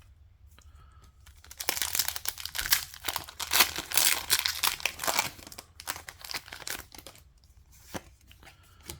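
Foil wrapper of a Pokémon TCG booster pack crinkling and tearing open: a dense crackle for about four seconds, then a few lighter rustles and ticks.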